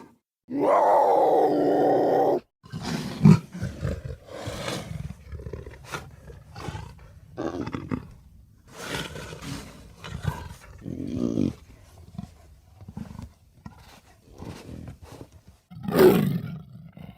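Big-cat roar sound effects, credited as cougars: one long roar near the start, then a string of shorter growls and snarls, and another loud roar near the end.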